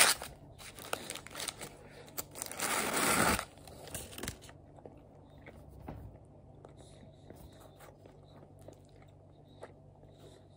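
Rustling, crinkling handling noise as a small pita souvlaki is handled close to the microphone: two loud bursts in the first few seconds with scattered clicks, then quieter.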